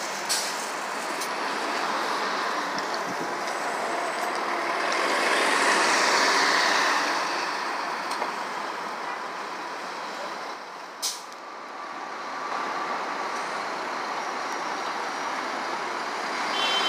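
City street traffic with a city bus running past, swelling to its loudest about six seconds in and easing off again. A sharp click comes about eleven seconds in, and a few electronic beeps start right at the end.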